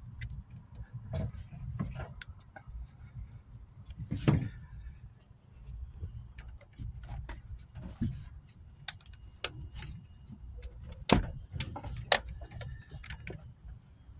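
Hand tools and metal parts clicking, clinking and knocking in an engine bay as an old part is worked loose at the back of the engine. Two sharper knocks come about four and eleven seconds in.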